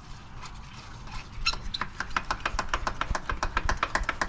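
Detroit Diesel DD15 six-cylinder engine cranking on its starter, starting about a second and a half in as a fast, even chugging of about seven or eight beats a second. It turns over without catching yet, as is expected right after fuel filters are changed while the fuel system is still being primed.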